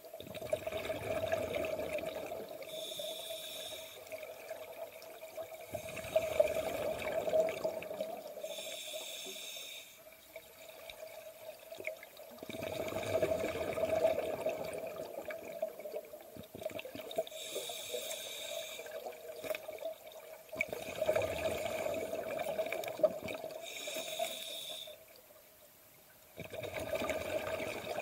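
Scuba regulator breathing underwater: long bubbling exhalations, each followed by a shorter hissing inhalation through the regulator, about one breath every six seconds.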